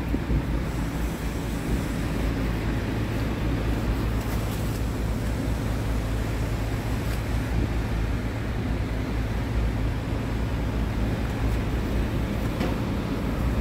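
Scania 94D truck's diesel engine idling steadily.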